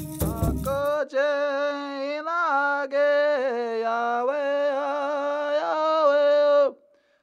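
Drum and rattle music cuts off about a second in. A man's voice then chants alone in long, held notes, and stops shortly before the end.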